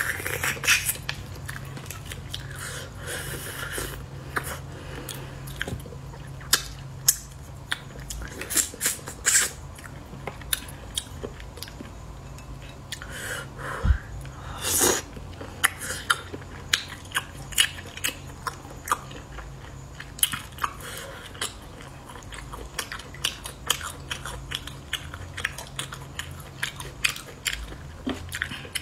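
Close-miked eating of braised snails in sauce: sucking the meat from the shells and chewing, with many short wet clicks and smacks of the mouth scattered throughout, over a low steady hum.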